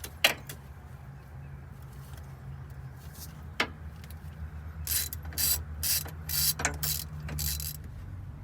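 Hand ratchet working over a steady low hum: a couple of sharp clicks, then a quick run of ratchet strokes about two seconds long, while snugging down the cylinder head bolts on a Detroit Diesel 8V92 engine.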